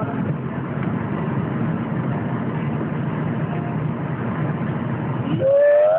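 Steady road and engine noise inside a moving car. Near the end a person lets out one long, loud moo, imitating a cow.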